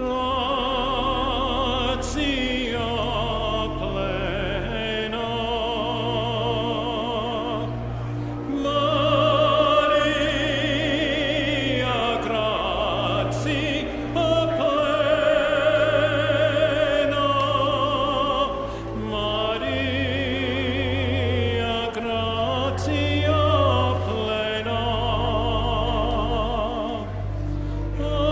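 Classical singing with a strong vibrato, phrase after phrase, over steady sustained low bass notes.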